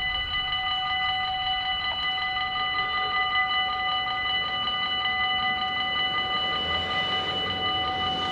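Electronic warning bells of a Dutch level crossing ringing in a rapid, steady dinging while the crossing closes and the barriers come down. A low rumble grows near the end as a train approaches.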